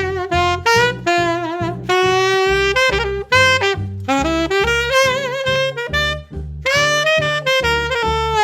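Martin Committee III alto saxophone playing a jazz melody, with vibrato on a held note near the middle. Underneath is an accompaniment with a bass line moving about two notes a second.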